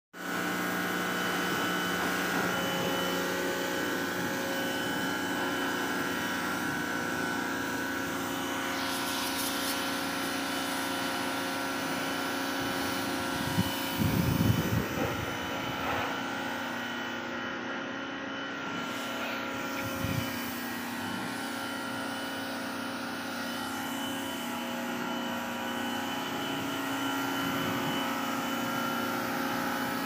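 Bosch electric pressure washer running steadily, its pump motor giving a constant whine of several held tones over a hiss of spraying water. A few brief knocks come about halfway through.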